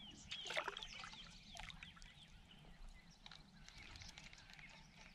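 Faint chirping calls of wildlife around a calm lake at dawn, with small water trickles and drips close by, busiest in the first second or so.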